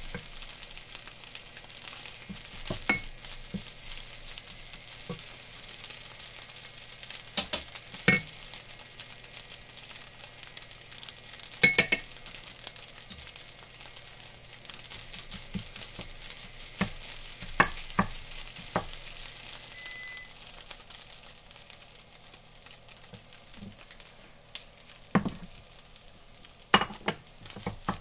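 Fried rice sizzling in a frying pan while a wooden spatula stirs and turns it, with scattered knocks and scrapes of the spatula against the pan; the loudest knock comes about twelve seconds in, and there is a cluster near the end.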